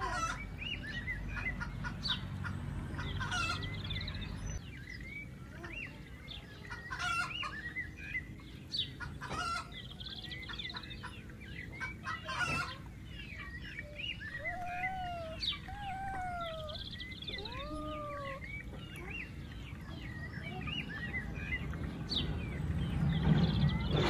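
Backyard chickens clucking, with a rooster crowing and small birds chirping over a low steady rumble.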